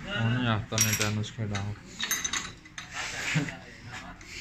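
A voice briefly, then light metal clinks and taps from small parts and tools as a diesel injection pump is assembled.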